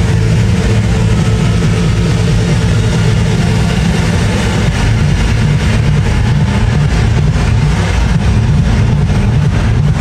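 Trance dance music from a festival sound system, dominated by heavy, booming bass that keeps a steady loudness.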